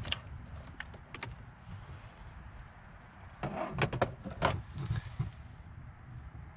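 Metal hand tools clinking and rattling: a socket, extension and swivel knocking together as they are handled, with a few separate clicks near the start and a busier run of clinks about three and a half seconds in.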